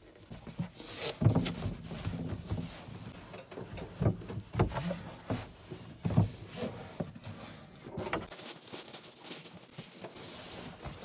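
A blue foam sleeping pad being unrolled and smoothed flat by hand on a carpeted platform: irregular soft thumps and scuffs, the loudest about a second in. Near the end a sleeping bag is pulled onto it with a rustle.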